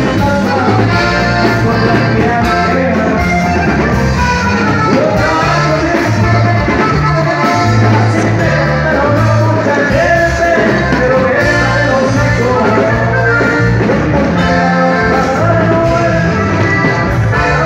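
Live norteña band music, loud and steady: electric bass holding a repeating bass line under keyboard and drums.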